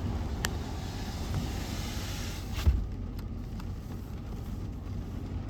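First raindrops of a storm ticking sharply against glass, once about half a second in and more loudly a little before three seconds in, over a steady low rumble of wind and rain.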